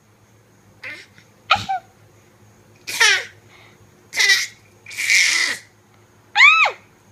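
A baby making a string of short, playful cough-like sounds and laughing squeaks, about six bursts a second or so apart, ending in a high squeal that rises and falls in pitch.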